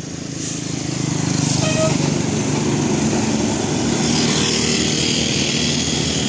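A heavy road vehicle, most likely a bus, passes close by with its engine running, building up over the first second, staying loud, then fading at the very end. A short high beep sounds about two seconds in.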